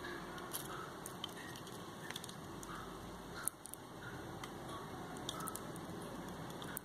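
Light clicks and taps of small camera parts being handled during lens disassembly, one sharper click about three and a half seconds in, over a steady hiss.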